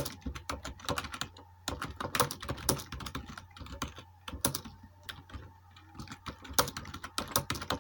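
Touch-typing on a computer keyboard during a timed typing test: a quick, irregular run of key clicks, several a second, with brief gaps, at a pace of about 45 words a minute.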